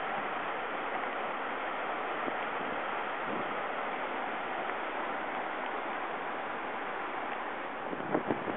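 Steady rush of a swollen river in flood, with a few short knocks near the end.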